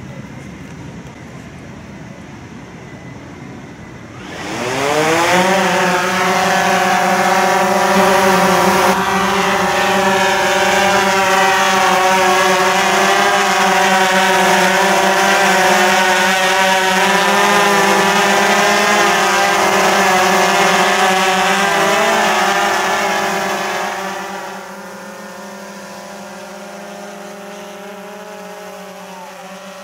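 DJI Phantom 3 Professional quadcopter with its propellers idling. About four seconds in, the motors spin up with a rising whine into a loud, steady buzzing hum. About twenty seconds later this drops to a quieter steady hum.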